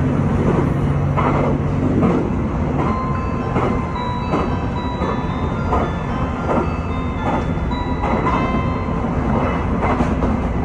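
JR Shikoku 2000 series diesel express train running, heard from inside the driver's cab: a steady low drone with wheels clacking over rail joints about once a second, and brief faint high-pitched tones now and then.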